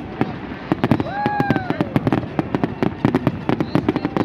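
Aerial fireworks display: a fast, uneven string of sharp bangs and crackles. A brief whistle rises and falls about a second in.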